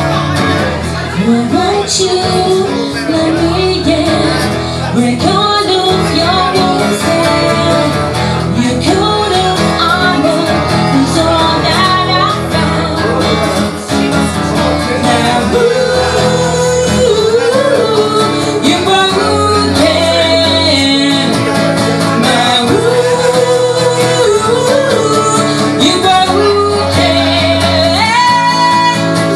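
Live acoustic song: a woman singing with a strummed acoustic guitar.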